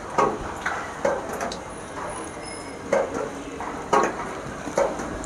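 Beaten egg poured from a clay bowl over sliced okra in a clay pot, with about seven short, sharp knocks and clatters of earthenware cookware spread irregularly through.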